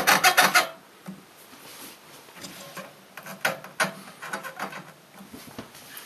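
Plastic cable tie pulled tight through its ratchet lock: a fast run of even clicks, about seven or eight a second, that stops under a second in. Faint handling and rubbing follow.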